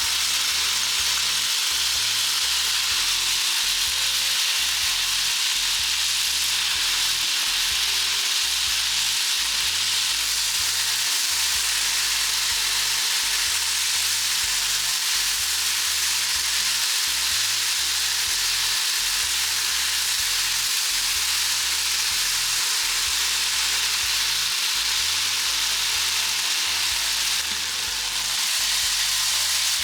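Potato and celery stir-frying in a pan with a little oil: a steady sizzle that dips briefly near the end.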